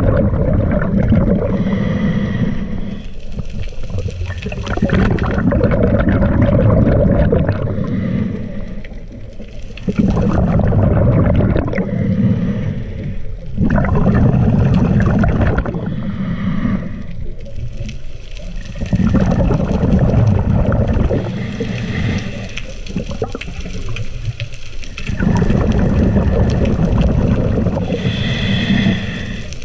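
Scuba diver breathing through a regulator, heard underwater: loud, gurgling rushes of exhaled bubbles every four to five seconds, each followed by the quieter hiss of an inhale, some of the inhales with a faint whistle.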